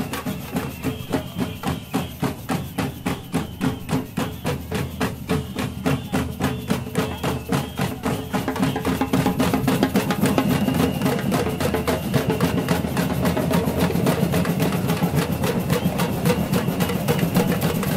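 Samba batucada percussion group playing a fast, steady beat on surdo bass drums and metal shakers, growing louder and denser about halfway through.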